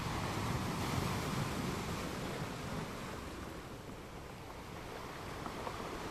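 Ocean waves breaking on a shore: a wash of surf noise that swells in the first couple of seconds and then eases off.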